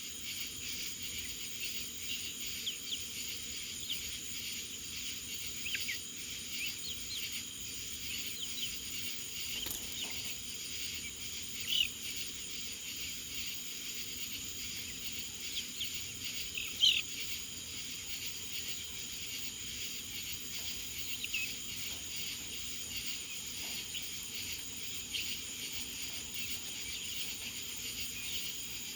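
Night chorus of crickets and other insects, a steady high buzzing and trilling with one finely pulsed high band. Short chirps sound over it, two of them louder, about twelve and seventeen seconds in.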